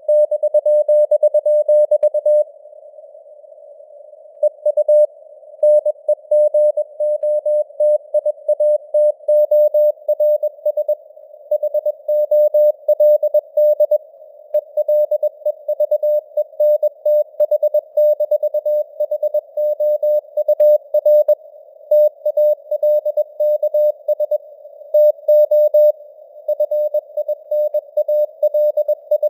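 Morse code sent at about 21 words per minute: a single mid-pitched beep keyed on and off in dots and dashes over a narrow band of hiss, like a CW signal heard on a receiver. The signal is simulated radio reception with noise and fading, and it breaks off for about two seconds a few seconds in.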